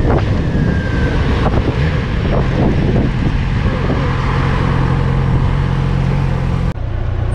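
Yamaha motorcycle engine running at low speed in traffic, with wind noise on the microphone. It settles into a steady low note as the bike slows, and the sound changes abruptly near the end.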